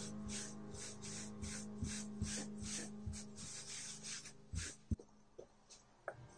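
A cloth rubbing leather conditioner into a piece of leather on a wooden table, in quick back-and-forth strokes about three a second. The strokes stop about four seconds in, followed by a couple of knocks.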